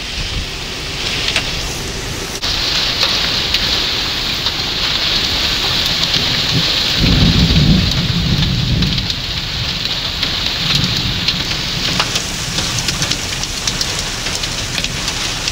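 Heavy wind-driven rain from a severe thunderstorm: a steady, loud hiss of rain, with a deeper rumble swelling about seven to nine seconds in as the storm's gusts strengthen.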